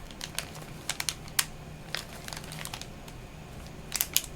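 Plastic snack packaging crinkling as it is handled, in scattered, irregular crackles and clicks.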